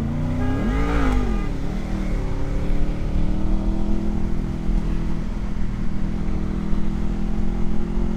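Honda VFR motorcycle's V4 engine pulling away: it revs up and drops back about a second in, a gear change, then runs steadily with its pitch slowly rising as the bike accelerates.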